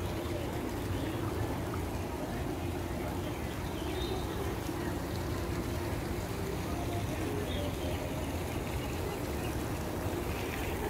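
Steady splashing of a pond fountain's jets falling back into the water.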